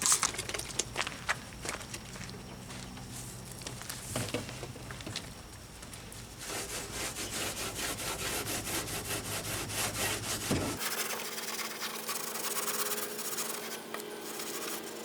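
Hand scrubbing and scraping on a surface soaked with spray cleaner, with scattered scrapes and clicks that grow denser and busier about halfway through. A low steady hum underneath cuts off sharply about eleven seconds in.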